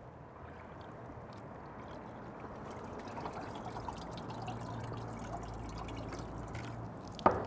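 Brine dripping and trickling off a whole turkey just lifted out of its brine, with a single sharp knock near the end.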